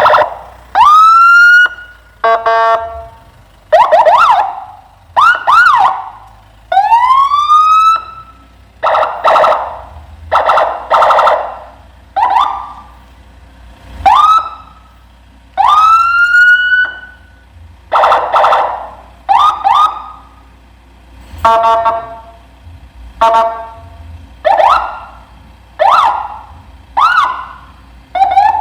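Electronic vehicle siren, a Senken Whelen-style siren module played through a UD100i siren speaker, sounding a long string of short loud bursts, roughly one every second or two. Sharp rising whoops alternate with rapid pulsing, warbling tones.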